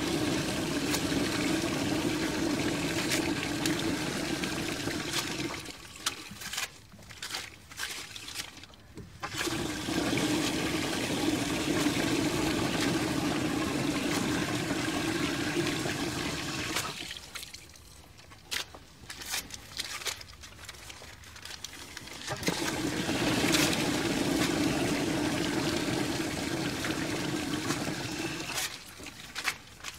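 Ceramic toilet flushing three times, each flush a rush of water lasting six or seven seconds, with shorter splashes and knocks in the pauses between flushes.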